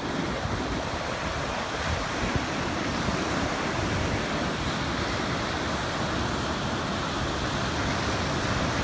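Ocean surf breaking and washing in on the beach, a steady rush of waves in rough, storm-stirred sea.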